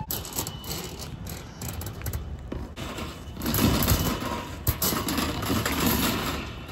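Sectional drain-cleaning machine running, its spinning steel cable rattling inside a roof plumbing vent pipe while clearing a drain stoppage; the clatter grows louder about three and a half seconds in, with one sharp click near the end.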